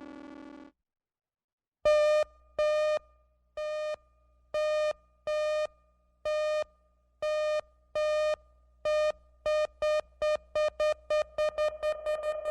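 Synthesized electronic beeps at a single buzzy pitch, starting about two seconds in. They repeat at uneven spacing, then speed up steadily into a rapid stream near the end, like an accelerating countdown alarm. Before them, the tail of a buzzy synth tone stops under a second in, followed by a brief silence.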